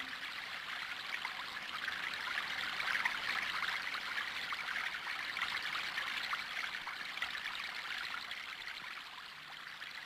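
Water in a stream running and trickling, a steady babbling rush. A low musical tone comes in near the end.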